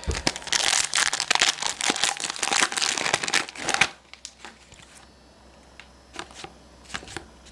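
Plastic wrapper of a trading card pack crinkling as it is torn open and handled, busy for about four seconds, then a few faint rustles and clicks.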